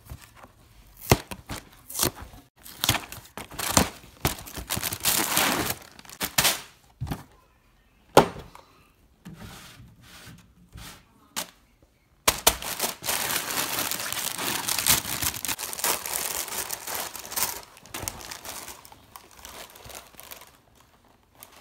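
Cardboard cereal box being torn open by hand, a string of short sharp tears and cracks. About halfway in, the box's plastic inner bag takes over with continuous crinkling that eases off near the end.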